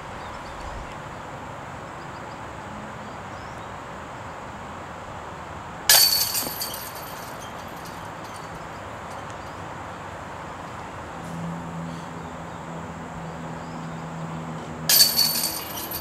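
Chains of a disc golf basket jangling as putted discs strike them: a sudden metallic rattle that dies away over about a second, once about six seconds in and again near the end.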